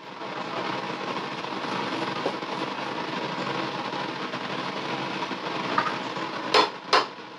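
A lidded pan of beef brisket, potato and tomato stew cooking on a gas stove makes a steady rushing noise, which eases off near the end. Two sharp knocks follow, about half a second apart.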